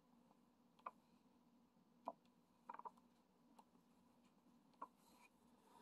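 Near silence with a few faint, irregular clicks: resin diamond drills being picked up and pressed onto a diamond-painting canvas.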